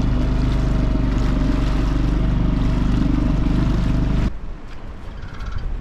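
Dinghy outboard motor running steadily at a constant speed, running well after being stripped and dried out from a flooding. It cuts off suddenly about four seconds in, leaving a quieter background hiss.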